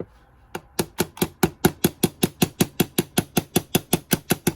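Light, rapid tapping on VW Beetle transmission parts during reassembly: about twenty even knocks, roughly five a second, starting about half a second in.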